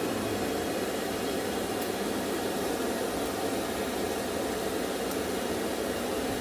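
Steady rush of air from a charcoal forge's blower fanning the freshly lit fire.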